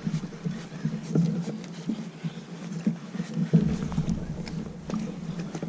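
Fishing reel whirring in uneven spurts as a hooked fish is reeled in on a bent rod, with scattered light ticks.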